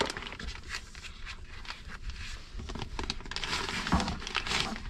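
Packaging being handled: a plastic-wrapped screen and foam inserts rustling and scraping in a cardboard box, with a soft knock about four seconds in.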